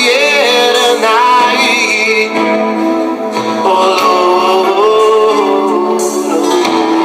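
A song with a male voice singing over guitar, played through the repaired Sharp GF-9191X boombox's speakers; the sound is thin, with almost no deep bass.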